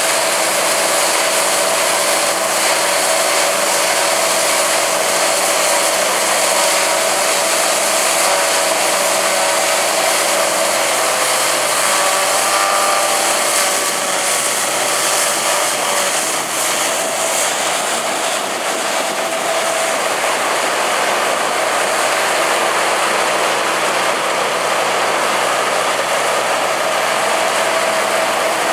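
Rostselmash Vector 420 combine harvester running while harvesting wheat: a steady, even drone of engine and threshing machinery, with a few steady tones over a dense hiss of chaff and straw being thrown out.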